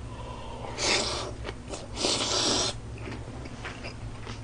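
Two loud, hissy breaths through the nose, about a second apart, from a man chewing a big mouthful of lettuce-wrapped pork belly, with faint chewing clicks between them.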